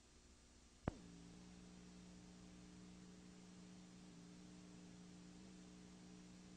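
Near silence: a faint, steady low hum from the old recording, broken by a single sharp click about a second in.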